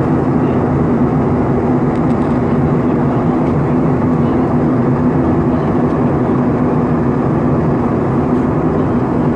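Steady cabin noise of a jet airliner in flight: engine and rushing air, with a low steady hum.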